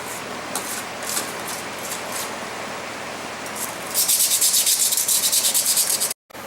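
Hand sanding or scrubbing on the metal of a folding knife bayonet during rust clean-up. A few light strokes come first; about four seconds in, a fast run of hard back-and-forth strokes, about eight a second, starts and stops abruptly.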